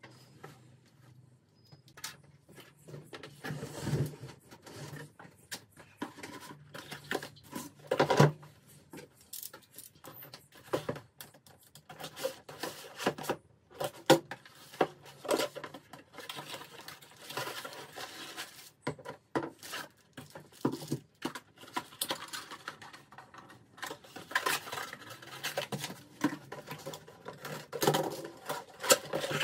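Unpacking sounds: cardboard box flaps and plastic wrapping rustling, with the knocks and clatters of parts being handled and set down on a wooden workbench.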